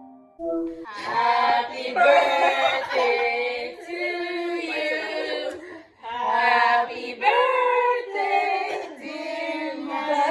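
Music: several voices singing together in harmony, with little or no beat behind them. The singing breaks off briefly about four seconds in and again about six seconds in.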